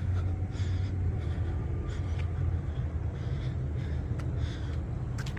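Soft breaths from the person filming while walking, coming every second or so, over a steady low rumble.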